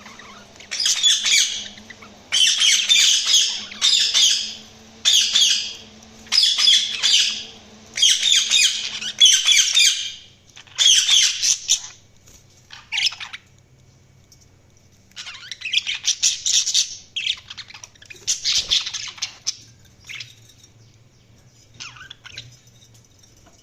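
Budgerigars chirping and chattering in repeated bursts of a second or two. The calls fall silent for a few seconds about halfway through, start again, and thin out to a few faint chirps near the end.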